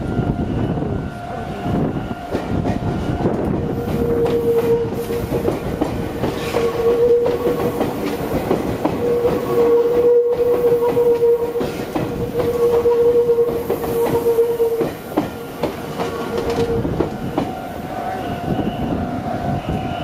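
A Meitetsu electric train passing close by, its wheels clattering over the rail joints. A steady tone sounds through most of the pass. A repeating level-crossing alarm tone is heard at the start and again near the end.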